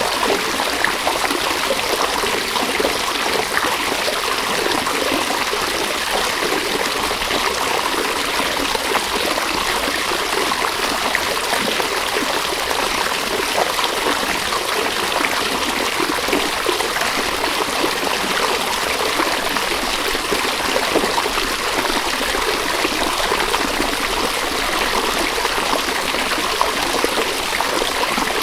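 A river's water running over stones, a steady rushing babble with fine splashing and trickling detail.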